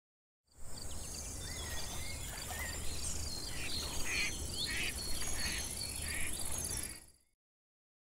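Nature ambience: a steady, high-pitched insect trill with short bird chirps repeating over it and a low background rumble. It starts about half a second in and fades out about a second before the end.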